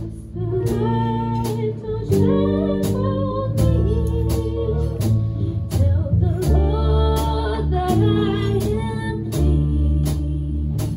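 Live hip-hop orchestra playing: violins, cellos, upright bass and electric guitar over a drum kit. The drums keep a steady beat of about two hits a second under a deep bass line.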